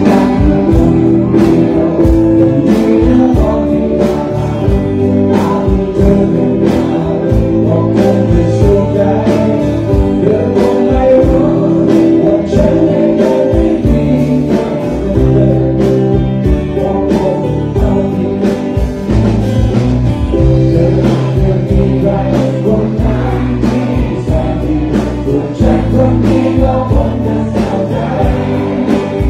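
Live rock band playing a song: electric and acoustic guitars, bass and drums with a steady beat, and singing over it.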